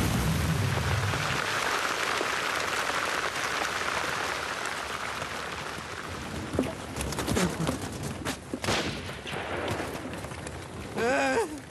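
Film battle soundtrack: the dying rumble and haze of an artillery shell blast fading away, then scattered gunshots from about six seconds in. Near the end, a wavering human cry.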